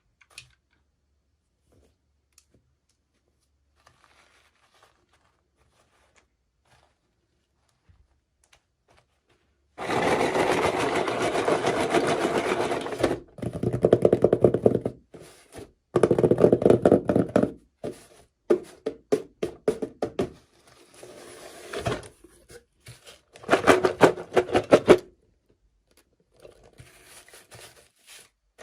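Scraping and rustling from toy packaging being handled. A few faint clicks come first, then from about ten seconds in a series of loud bursts of handling noise, each a few seconds long, with short gaps between them.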